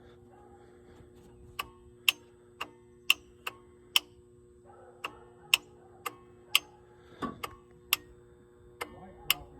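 Glow plug relay on a Ford 7.3 IDI diesel clicking on and off as it cycles the glow plugs before cranking. Sharp single clicks come about twice a second, unevenly spaced, over a faint steady hum.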